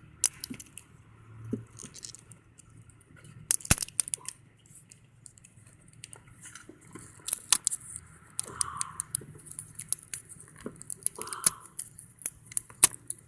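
Irregular sharp clicks and crackling as strong double-sided tape holding a laptop screen's data cable is picked at and peeled by hand.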